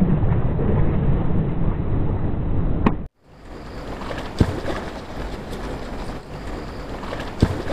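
Rushing river water with wind noise on the microphone, loud and low for the first three seconds, then cut off abruptly. After the cut, a quieter steady wash of flowing water with two sharp knocks, about three seconds apart.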